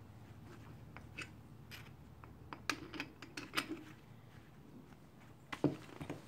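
Faint, irregular clicks and scrapes of metal suspension parts handled by gloved hands, as a tie rod end and its tapered collar are fitted into an aluminium roll-center adjuster.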